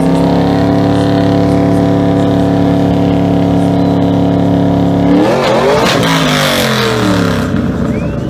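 A muscle car's V8 engine held at steady high revs for about five seconds. The revs then drop and climb again under a noisy rush, and the engine settles to a lower running note.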